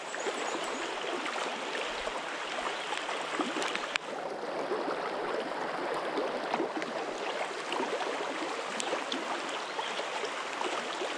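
Creek water running steadily past, a continuous rush of flowing current.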